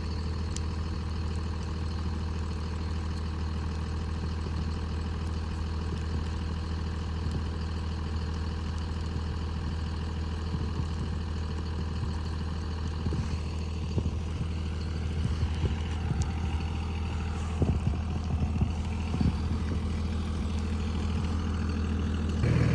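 Truck engine idling steadily with a low hum, with a few knocks and clunks in the second half.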